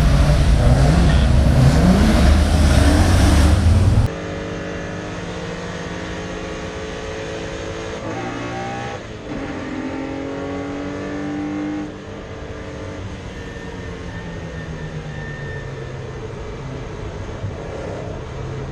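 Racing car engines accelerating hard, loud for the first four seconds; then, after a sudden cut, a single racing engine heard from on board, the Porsche 964's air-cooled flat-six, quieter, its note climbing with the revs and dropping at each gear change.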